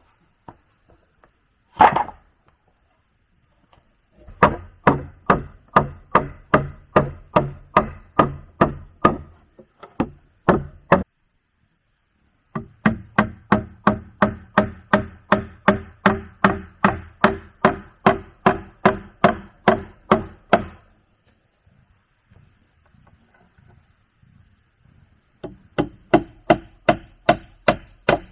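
Steady rhythmic blows of a tool striking wood, about three a second, in three runs with short pauses between, each blow ringing with a low note from the timber. A single heavier blow lands about two seconds in.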